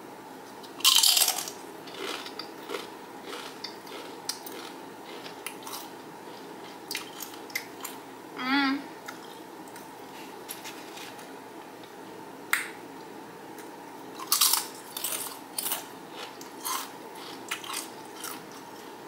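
XXtra Flamin' Hot Doritos tortilla chips bitten and chewed close to the microphone. There is a loud crunching bite about a second in, scattered crunches while chewing, and a second burst of crunching bites about three quarters of the way through.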